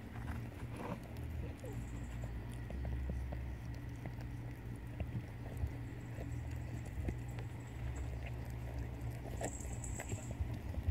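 Mother cat licking and mouthing her newborn kitten just after its birth: a run of small, irregular wet clicks and smacks.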